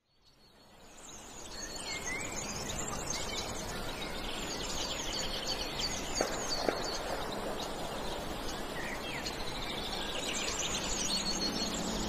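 Outdoor birdsong ambience: many small birds chirping in short, quick high notes over a steady background of outdoor noise, fading in over the first couple of seconds, with two brief clicks about halfway through.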